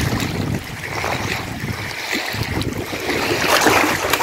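Wind buffeting the microphone over small waves lapping against a rocky reservoir shore. The water sloshes louder near the end as a fish is lowered back into the shallows to be released.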